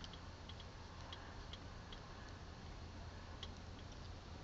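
Quiet car-cabin ambience: a faint steady low hum with scattered faint, irregular ticks and clicks.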